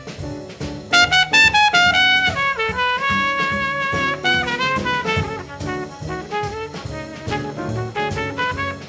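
Jazz trumpet playing a fast, high line over bass and drums, with quick runs and one held high note a few seconds in.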